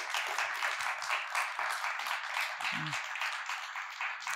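Audience applauding: dense clapping that begins to thin out near the end.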